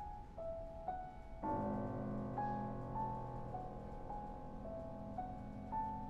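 Steinway grand piano played solo: a high figure of light, repeated notes, joined about a second and a half in by a low chord that is held beneath it while the high notes carry on.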